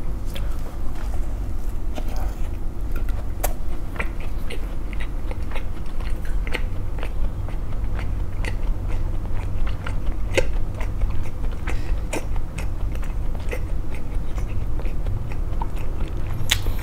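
Close-up chewing of a flaky baked pastry, with many small, irregular crunches and crackles of the crisp crust.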